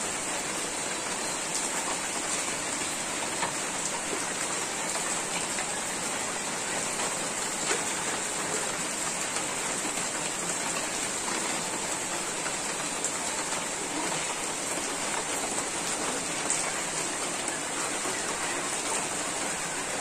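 Heavy rain falling steadily, with a few sharper drop strikes standing out now and then.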